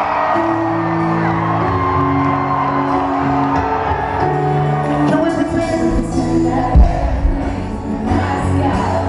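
Live hip-hop concert music over a PA, recorded from inside the audience: sustained synth chords with singing and crowd whoops, deep bass coming in about halfway, and one loud thump about two-thirds of the way through.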